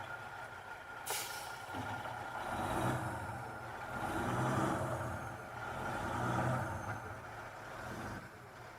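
Heavy milk truck's air brakes hissing briefly about a second in, then its engine revving in three swells as the truck strains against being stuck in deep snow.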